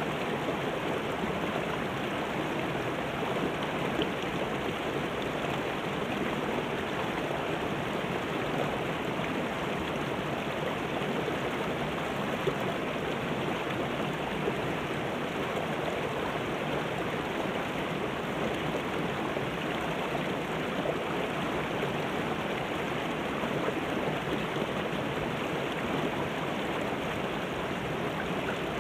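Shallow mountain river rushing over rocks and small rapids, a steady splashing wash of water.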